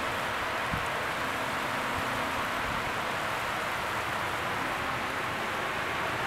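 Heavy rain pouring down, a steady even hiss of the downpour.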